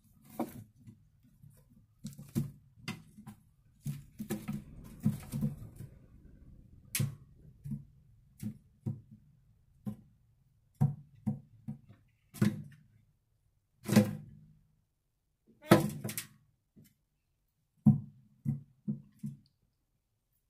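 Irregular dull knocks and thumps of rabbits shifting and scrabbling on the floor of a wooden hutch, with a stretch of rustling in the wood-shaving bedding about four to six seconds in. The loudest knocks come about two-thirds of the way through.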